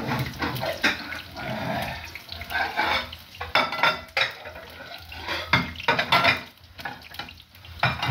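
Dishes, pots and metal utensils clattering and clinking in irregular knocks, with some water noise.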